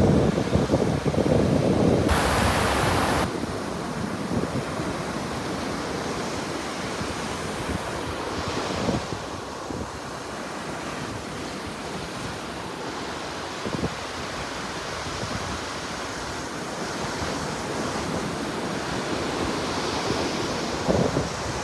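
Sea waves washing onto the shore in a steady surge and hiss, swelling and easing every several seconds. Wind buffets the microphone with a low rumble in the first few seconds.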